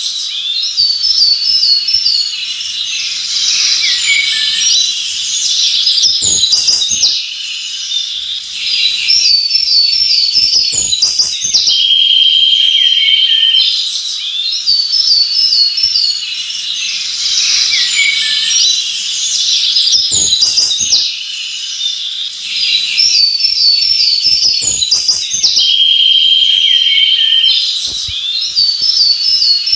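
Several forest birds chirping and singing in a mix of quick trills, short whistled notes and a held buzzy note, with a few faint low knocks. The same stretch of song repeats about every 14 seconds.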